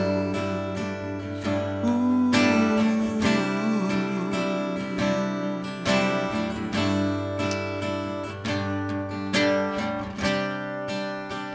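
Acoustic guitar strumming chords in an instrumental break between sung lines of a worship song, with no voice over it.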